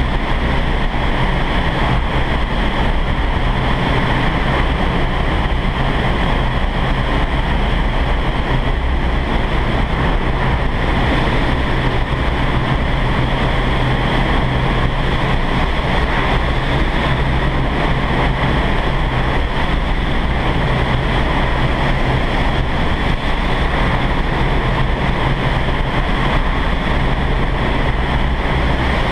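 Steady loud rush of air blasting up through an indoor vertical wind tunnel's flight chamber, buffeting the microphone, with a constant low hum underneath.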